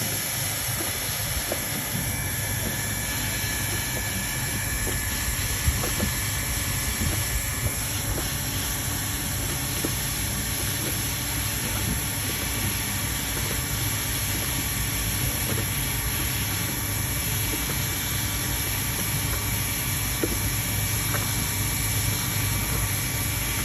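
Hot-air heat gun running steadily at its max setting, with a hiss of blowing air and a faint steady whine, used to heat and soften a vinyl welding rod. A few faint knocks come through.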